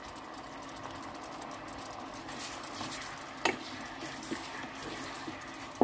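Thai-style sauce of shallots, garlic and bottled sauces sizzling steadily in a non-stick electric pot as it is stirred with a wooden spatula, with one sharp knock of the spatula against the pot about three and a half seconds in and a few lighter scrapes.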